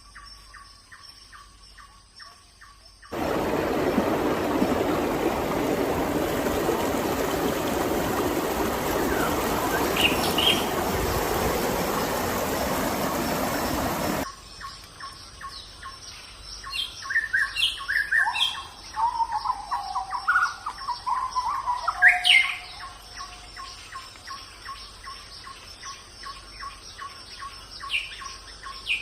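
Forest ambience: insects trill in a steady pulsing chorus. About three seconds in, a loud, even rushing hiss cuts in, then stops abruptly some eleven seconds later. Songbirds then chirp and whistle over the insects, with a burst of calls about twenty seconds in.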